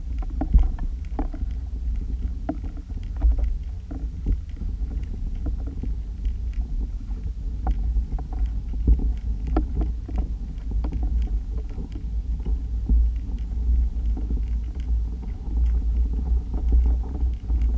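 Steady low rumble of water flowing past an underwater camera towed along with the lures, with scattered small clicks and knocks throughout.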